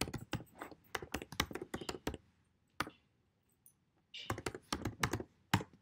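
Typing on a computer keyboard: a quick run of keystrokes for about two seconds, a single key near three seconds, then another burst of keystrokes a little past four seconds.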